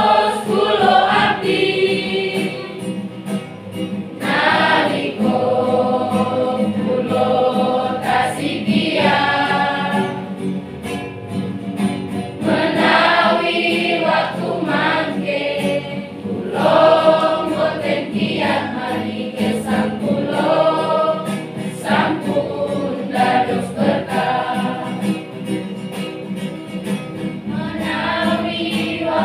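Children's and youth church choir singing a church song together in held, sustained phrases, with short breaks between phrases.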